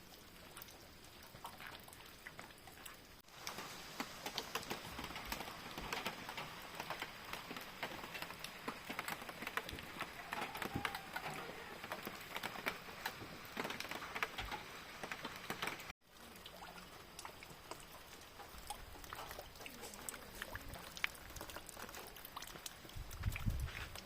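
Rain falling, a steady patter of many small drops, growing louder about three seconds in.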